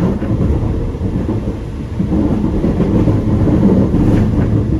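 Sound Transit Series 2 light rail train riding between stations, a heavy, uneven low rumble heard from inside the car.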